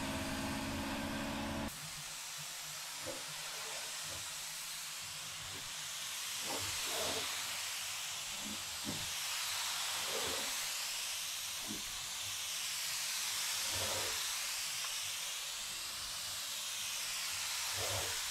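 Gravity-feed air spray gun hissing steadily as it sprays a second coat of primer onto a truck cab. The hiss rises and falls in tone every few seconds as the gun sweeps along the panel.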